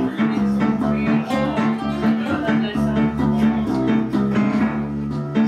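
Guitar-led instrumental music with a steady run of repeated plucked notes.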